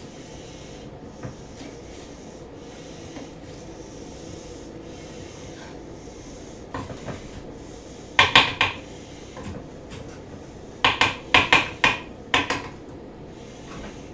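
Knife working green onions on a cutting board: a couple of short scraping strokes about eight seconds in, then a quicker run of about six strokes near the end.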